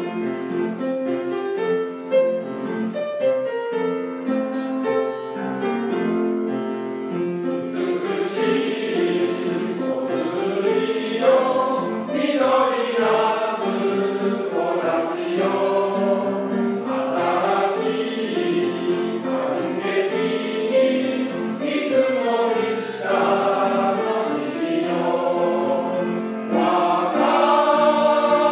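A Japanese camp song sung by a choir with instrumental accompaniment; an instrumental introduction comes first, and the voices enter about eight seconds in.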